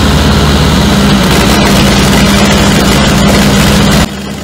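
John Deere turbocharged diesel engine running steadily with a fast low pulse, loud; it cuts off abruptly about four seconds in.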